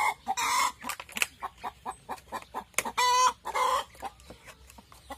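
Barred hens at the nest boxes clucking rapidly, with two louder, drawn-out cackles about three seconds in: the cackling of hens that have just laid.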